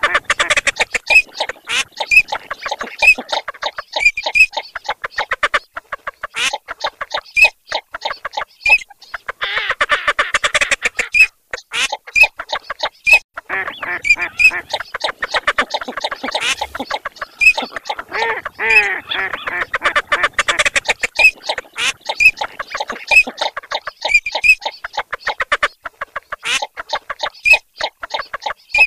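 A mixed chorus of Eurasian teal and northern shoveler calls, played as a duck-hunting lure: dense, rapid, overlapping quacking and clucking that swells and fades every few seconds, with short high teal notes repeating every second or so.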